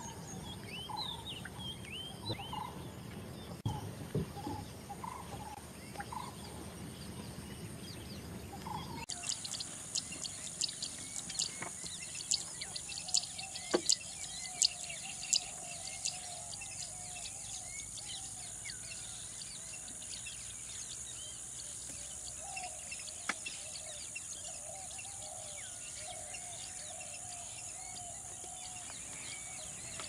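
Wild birds calling: scattered calls and short rising whistles at first. About nine seconds in, a steady high hiss sets in, with many quick high chirps over a run of lower, wavering calls repeated again and again.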